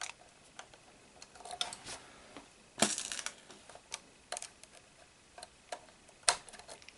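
Small plastic parts and a screwdriver clicking and tapping while a fan is screwed onto a plastic model V8 engine kit: scattered sharp clicks, the loudest a quick cluster about three seconds in and another single click near the end.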